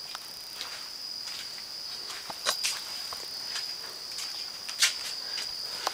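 A steady high-pitched whine held throughout, with a scattering of sharp clicks and taps, the loudest about two and a half and nearly five seconds in.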